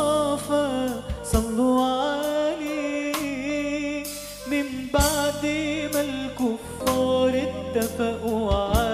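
Background music: a voice singing a slow, wavering, ornamented melody, with occasional sharp percussion hits.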